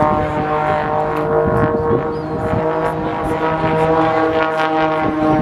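Aerobatic biplane's piston engine and propeller running at a steady pitch during its display.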